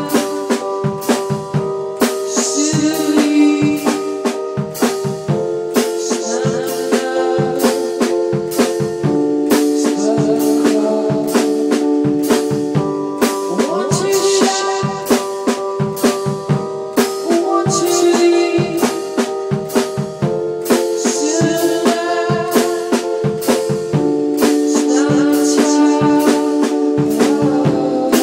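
One-man band playing live: a Casio electronic keyboard holds long sustained notes that change every few seconds, with a melody above them, while drum and cymbal hits keep a steady beat.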